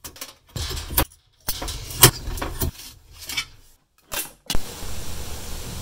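Handling noise from a 3D-printed plastic print: a few sharp clicks and taps as it is taken off the metal printer bed and set down on a workbench, over a low hum. Several abrupt cuts to dead silence break it up.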